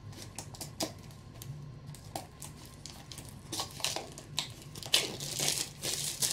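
Plastic wrap being cut and pulled off a small cardboard blind box: crinkling with many small crackles, busier and louder in the last second or so.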